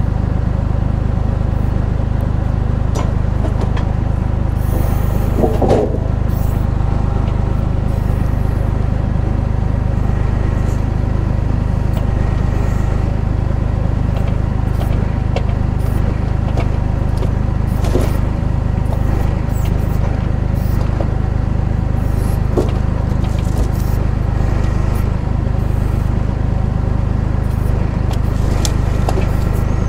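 Valtra A93 diesel tractor engine running steadily at just over 1000 rpm, driving the hydraulics of an FTG Forest FB42 log-trailer crane as it is worked, with a few sharp clicks and knocks from the crane.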